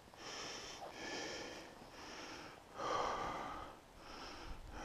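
A person breathing close to the microphone, a series of heavy breaths and sniffs, the loudest about three seconds in.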